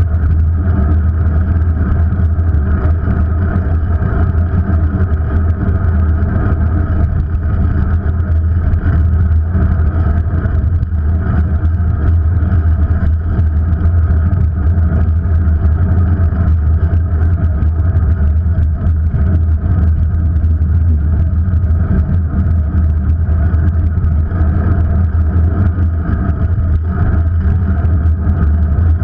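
Steady wind and road rumble picked up by a vehicle-mounted action camera moving along a street, a loud, even low drone.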